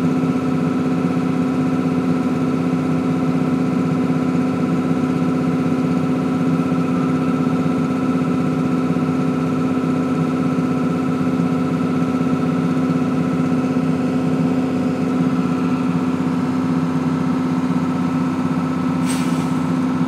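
Grain bag extractor running steadily while it unloads grain through its auger into a trailer: a constant, even machine drone with a steady hum, and one brief click near the end.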